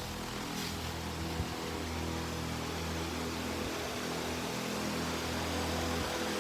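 Everest oscillating electric fan running: a steady motor hum with a light rush of air.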